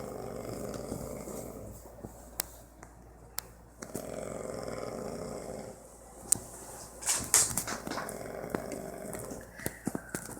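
A man snoring in his sleep: three long rasping snores about four seconds apart. Sharp clicks come between them, and a louder noisy burst comes just before the third snore.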